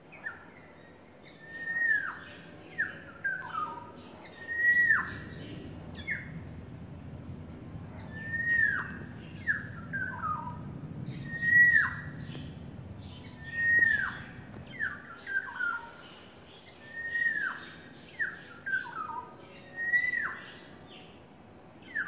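Orioles calling: a loud, drawn-out note sliding down in pitch, each followed by two or three shorter falling notes, repeated about every three seconds, seven times. The uploader takes the calls for courtship.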